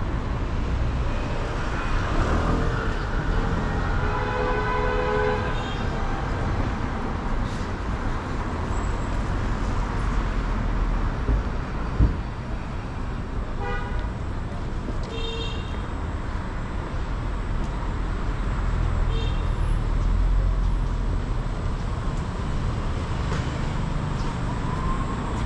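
Busy city street traffic: a steady hum of passing vehicles with several short horn toots scattered through it. There is a single sharp knock about halfway through.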